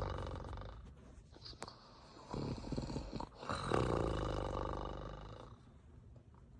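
A woman snoring. A snore fades out at the start, then after a pause comes a rattling snore a little over two seconds in, followed by a longer, smoother one that fades away well before the end.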